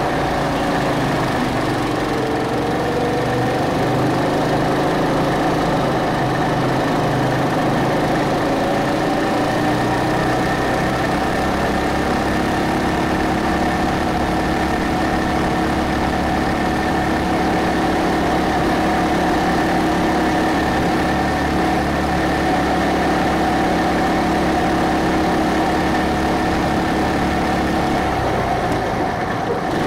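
Go-kart engine running hard at speed, heard close up from the kart. Its pitch dips and rises in the first few seconds, holds steady through a long stretch, then eases off near the end.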